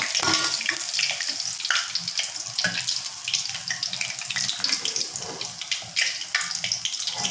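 Crumb-coated squid rings deep-frying in hot oil in a steel wok: a steady sizzle with many quick crackles.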